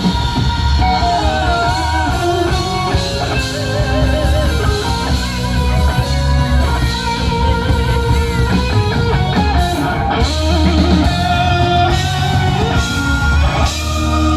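Live rock band playing an instrumental stretch: a lead electric guitar line with bent, wavering notes over drums.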